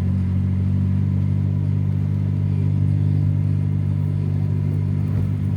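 Motor vehicle engine running at a steady cruise with road noise, a constant low hum.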